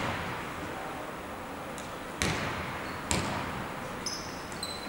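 Basketball bounced twice on a hardwood court by the free-throw shooter, each bounce echoing in the large arena hall. Faint high sneaker squeaks begin near the end.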